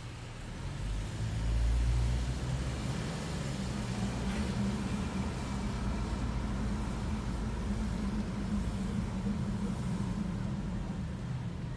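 2012 Chevy Equinox moving with a steady low rumble, and a faint high squeak around the middle of the stretch. The owner says the squeak comes from the passenger-side front brake.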